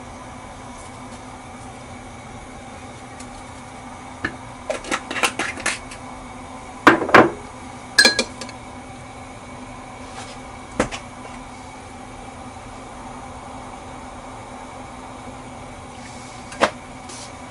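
A metal spoon clinking against a ceramic cup while stirring beaten eggs. First comes a run of light clicks, then two sharp, louder clinks about seven and eight seconds in, and a single click near the end, all over a steady low hum.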